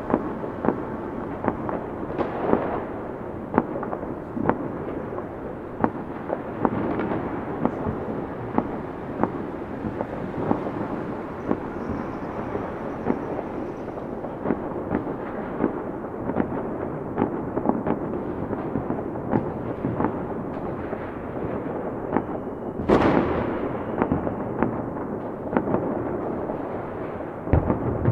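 Fireworks going off continuously: many sharp bangs and crackles over a steady rumble, with one louder blast about three quarters of the way in.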